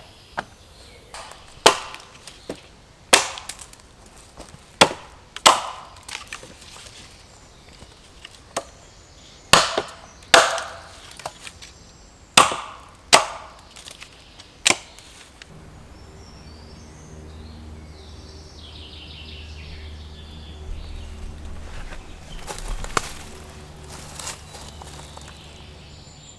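Axe chopping dead wood: about a dozen sharp, irregular blows over the first fifteen seconds. The blows then stop and a low steady hum takes over.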